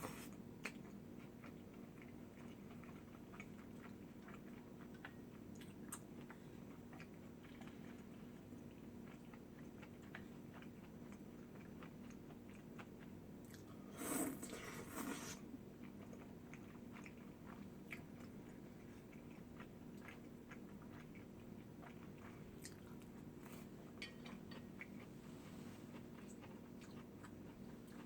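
A person chewing and biting food close to the microphone, with small soft clicks and one louder crunchy, noisy sound about halfway through, over a faint steady hum.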